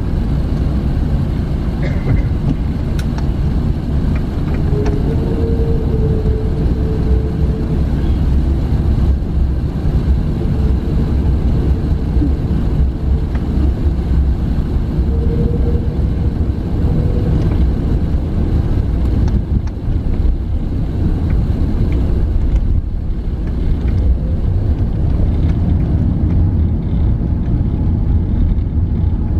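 Steady low rumble in the passenger cabin of an Airbus A380 taxiing on the ground, engines at taxi power and wheels rolling, with a faint hum that comes and goes near the middle.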